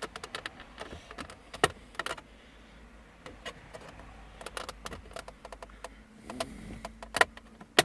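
Irregular small clicks and taps of plastic trim as the Audi A6 C6's centre armrest lid is pried out with a flat pry tool, with a few sharper snaps among them.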